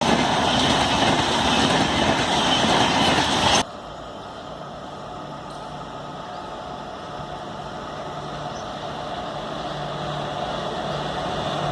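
A loud rushing noise that cuts off abruptly about three and a half seconds in, followed by a steady engine drone with a low hum that slowly grows louder as the vehicle draws closer.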